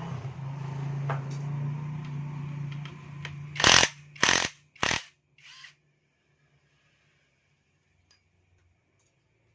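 A motor-driven workshop power tool runs with a steady hum for about three seconds, then three short, loud noises about half a second apart and a fainter one after them.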